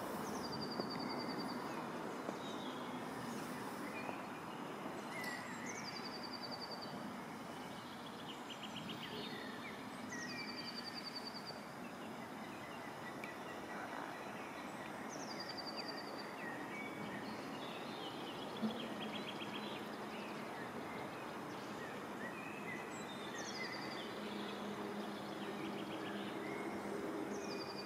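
Outdoor ambience: a steady rushing background with a songbird repeating one short descending phrase about every five seconds and other birds calling now and then. A faint low hum comes in near the end.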